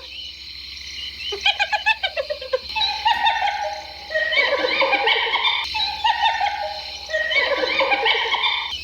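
Hyenas 'laughing': rapid runs of short high-pitched staccato notes, some falling in pitch, with several calls overlapping near the middle. This giggling call is typical of the spotted hyena.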